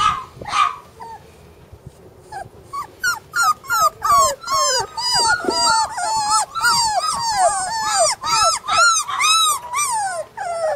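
Young flat-coated retriever puppies whining. A couple of short yelps come at the start, then a brief lull, and from about three seconds in a fast, unbroken run of whimpering cries follows, each rising and falling in pitch, about three a second.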